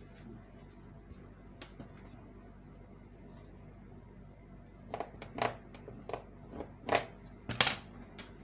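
Low steady room hum, then from about five seconds in a run of six or seven sharp clicks and taps from a ruler and pencil being handled on a wooden worktable.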